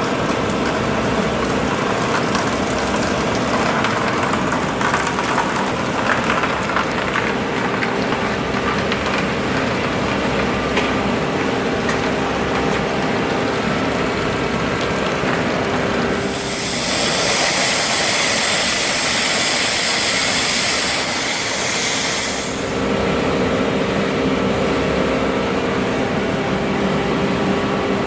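Steady mechanical noise with a constant hum, joined a little past the middle by a loud hiss that lasts about six seconds and then stops.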